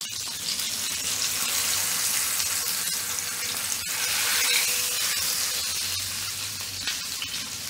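Oil sizzling steadily around a black pomfret shallow-frying in a cast-iron skillet, with a single sharp click about four seconds in.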